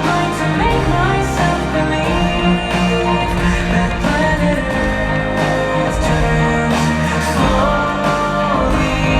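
Ice-show song playing: a pop-style tune with a singing voice over a steady bass line.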